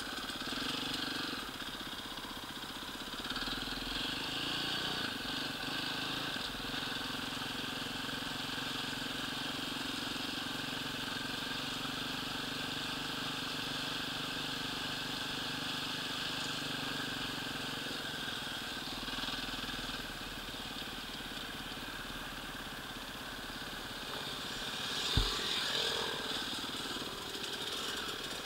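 Enduro motorcycle engine running steadily while being ridden, heard from the rider's helmet camera with a steady rush of noise. A single sharp knock a few seconds before the end.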